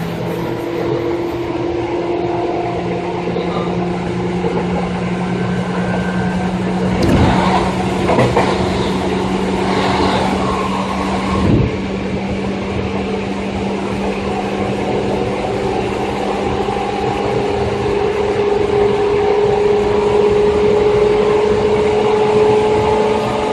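Seibu 2000 series electric train running, heard from aboard. Its traction motors and gears give a steady whine whose higher tone slowly rises in pitch in the second half as the train gathers speed. A few clacks of the wheels over rail joints come around the middle.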